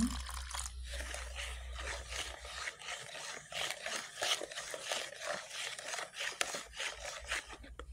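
Plastic ladle stirring granulated sugar into coconut milk in a plastic basin: repeated gritty scraping strokes of the undissolved sugar grains against the bowl.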